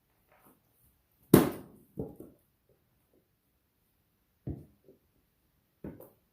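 A few separate knocks of wood striking wood. A loud, sharp one comes about a second in, two lighter ones follow right after, and two more knocks come later.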